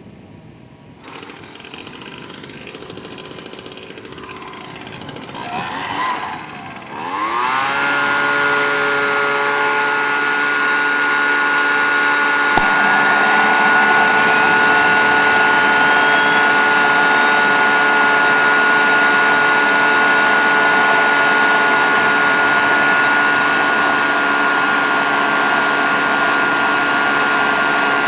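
A handheld gas leaf blower starts and revs up to a steady high-speed run, blowing into the turbocharger intake of a homemade twin-spool turboshaft engine to spin it for starting. From about halfway a thin whine rises slowly and steadily in pitch as the turbocharger spools up.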